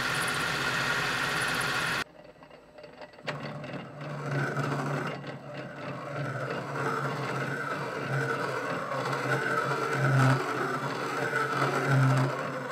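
Metal lathe turning a metal part while the cutting tool takes a cut and sheds chips. A steady hiss of cutting stops abruptly about two seconds in; after a brief lull the lathe runs again with a low hum and a higher whine from the cut, swelling louder twice near the end.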